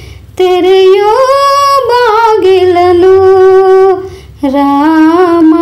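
A woman singing solo without accompaniment: long held notes with a slight waver, in two phrases with a short breath about four seconds in.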